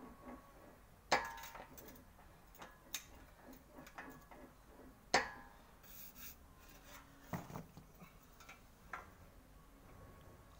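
Sheet-metal repair panel being worked through an English wheel: faint regular ticking as it is rolled, broken by several sharp metallic clinks with a short ring, the loudest about a second in and about five seconds in.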